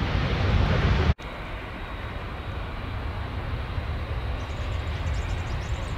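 Boeing 747-8F freighter's four GEnx jet engines running as the aircraft moves along the runway, a steady, noisy rumble. The sound drops out abruptly about a second in and comes back somewhat quieter.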